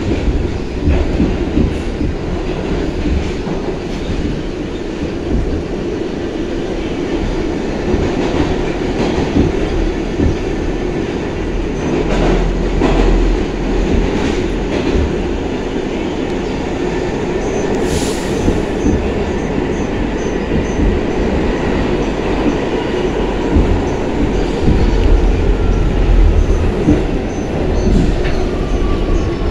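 New York City subway 6 train running at speed, heard from aboard: a steady rumble of wheels on rail, with clacking over rail joints. There is a brief hiss about 18 seconds in, and a faint falling whine near the end.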